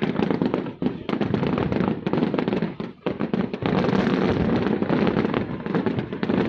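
A fireworks display going off in rapid succession: a dense run of bangs and crackling. It lets up briefly about three seconds in, then runs on without a break.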